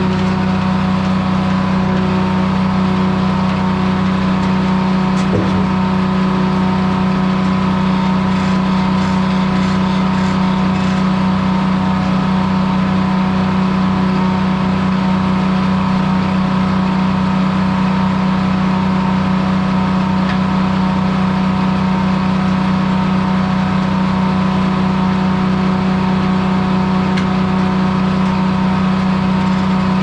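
Corley circle sawmill running at a steady drone, its power unit and spinning blade holding an even note throughout, with a single light knock about five seconds in.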